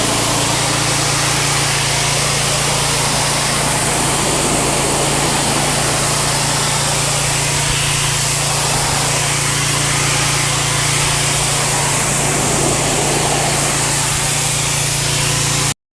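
Simpson AL4240 gas pressure washer's Honda engine running steadily under load, with the hiss of the high-pressure spray blasting concrete. It cuts off suddenly near the end.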